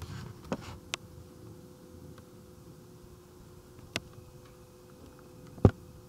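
A person walking to a wooden pulpit and setting down papers: a few scattered knocks and clicks, the loudest near the end, over a faint steady hum in the room.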